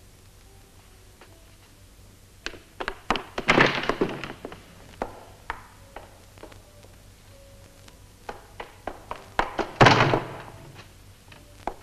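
Knocking and banging on a wooden door in irregular clusters of sharp knocks, with two heavier blows, one about three and a half seconds in and one near the end.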